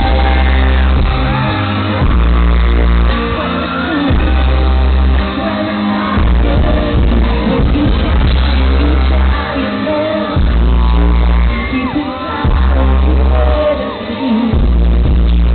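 Live pop song: a male lead singer over a loud band with a heavy bass line whose notes start and stop every second or two, heard through the hall's sound system.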